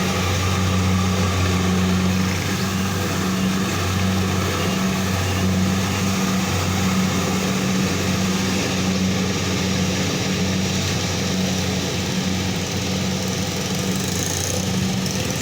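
A small engine running steadily, its low hum swelling and dipping slightly every second or so.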